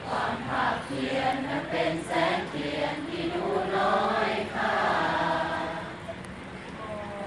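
A group of voices singing together in unison, with a longer held passage about four to five seconds in.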